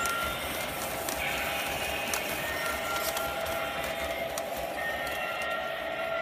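Lionel O-gauge aluminum passenger cars rolling along three-rail model track: a steady rolling noise with sharp clicks as the wheels cross rail joints and a switch, and high steady tones that come and go.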